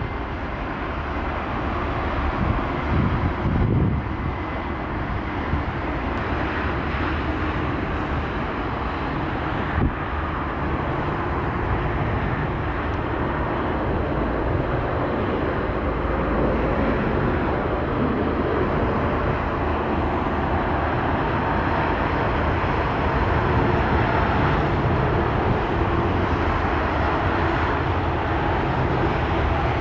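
Jet engines of an Airbus A320-family airliner taxiing, a steady drone, with a low, uneven wind rumble on the microphone underneath.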